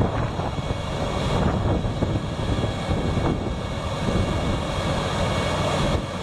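Heavy rotator tow truck's diesel engine running steadily while its boom lifts an overturned trailer.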